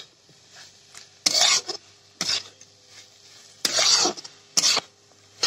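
Spatula scraping and stirring potatoes and fenugreek leaves in a large metal kadhai, about four scraping strokes, with faint sizzling between them as the last water is cooked off.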